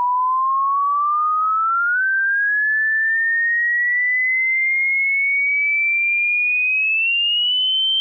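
Hearing-test sweep tone: a single pure tone gliding slowly and steadily upward in pitch from a mid pitch to a high one, with a small step up about two seconds in.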